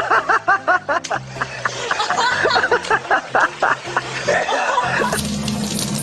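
A person laughing in quick repeated bursts, giggling, over background music. About five seconds in, it cuts to running water from a tap.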